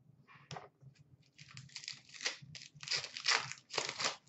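Trading-card pack wrapper being torn open and crinkled by hand: a run of rustling, crinkling bursts, faint at first and louder after the first second and a half.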